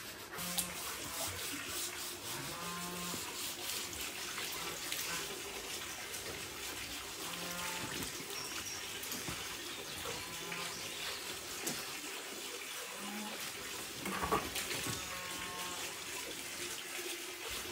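Farm animals calling in the distance, with roosters crowing a few times over a faint steady background.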